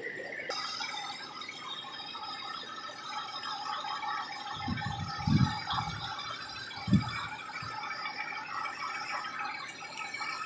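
Air drawn by the suction bulb from the radiator filler neck bubbling through the test fluid of a combustion-leak block tester, a steady fizzing hiss, with a few dull low thumps about five and seven seconds in.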